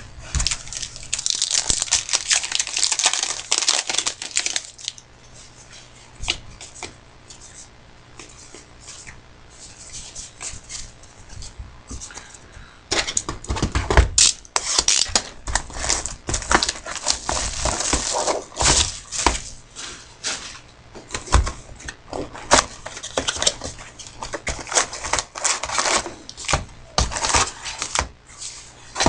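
Packs of trading cards being opened and handled: wrappers tearing and crinkling, cards flicking and sliding against each other. It is busy for the first few seconds, sparse for a while, then busy again from about halfway.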